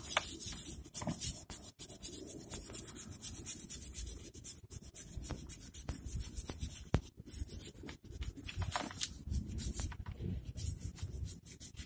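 Hand rubbing on a motorcycle engine part, scrubbing or sanding it to a shine in quick repeated strokes, with one sharper click about seven seconds in.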